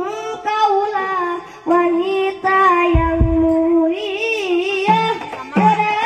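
A young boy sings a slow, ornamented melody into a microphone over a PA, holding long notes. Hand drums of a hadrah ensemble come in with deep strokes about three seconds in, and again near the end.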